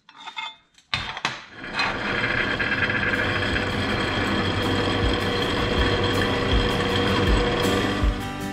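A benchtop drill press drilling a hole in a small steel bracket foot. After a brief knock about a second in, the motor and bit run with a steady, even whirring and grinding.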